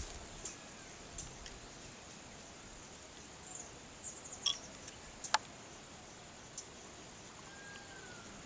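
Quiet outdoor ambience with a steady high insect buzz, a few small sharp clicks about four and a half and five seconds in from a syringe and tranquilizer dart being handled, and one short bird whistle near the end.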